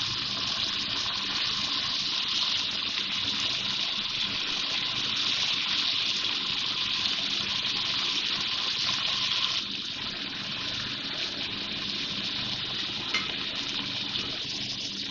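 Tandoori chicken pieces sizzling steadily in oil and marinade in an aluminium degchi while they are turned with metal tongs. The sizzle eases slightly after about ten seconds.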